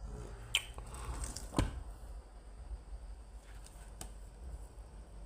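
A hardcover book is handled and opened on a table. Two sharp knocks come about half a second and a second and a half in, then quieter handling of the pages, over a low steady hum.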